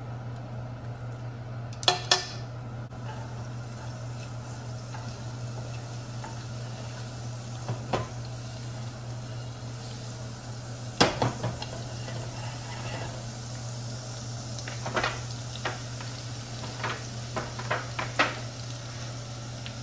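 Minced garlic and green onion whites frying in oil in a nonstick wok, sizzling, over a steady low hum. Utensils and the pan clink and knock sharply now and then, loudest about two seconds in and again near the middle.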